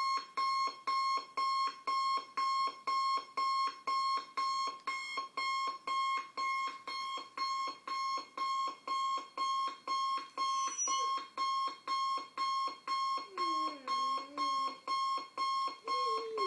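Alarm clock beeping a single high tone in rapid, even pulses, a little under three a second. Near the end a dog's low, wavering whine starts up under the beeps.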